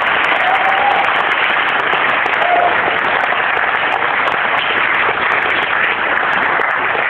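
Concert audience applauding and cheering steadily, with a couple of short shouts in the first three seconds.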